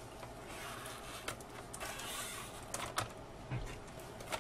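Hard plastic case of a Commodore LCD laptop being handled as its hinged screen lid is folded shut: a soft sliding rub, then a few light clicks and a low knock as the lid settles and the machine is moved.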